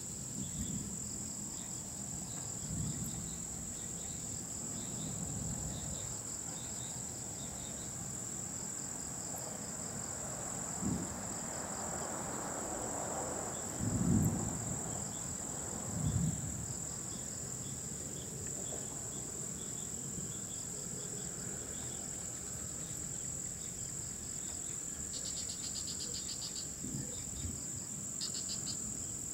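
Insect chorus of crickets: a steady high-pitched drone with rows of pulsing chirps beneath it. A few low rumbles come through, the strongest about 14 seconds in.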